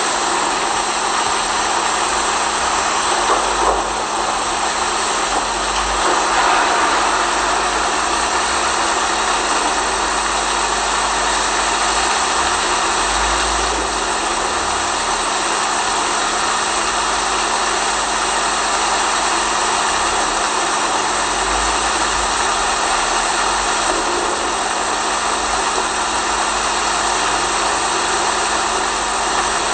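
Steady rain, an even hiss with a low steady hum under it.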